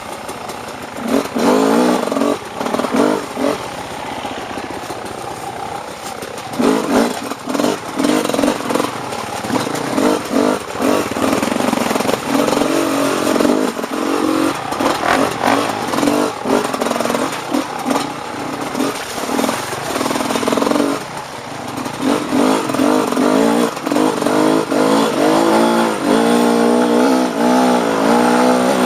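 Off-road dirt bike engine ridden under throttle, revving up and dropping back again and again as the rider works the throttle over the terrain, easing off briefly a couple of times.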